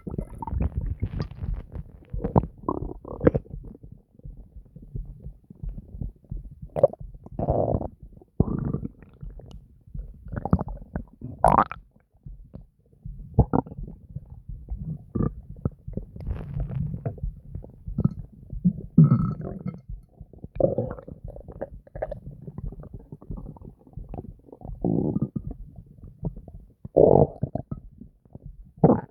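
Human stomach gurgling and growling: deep rumbles and bubbly gurgles in irregular bursts, one after another, some short and some drawn out.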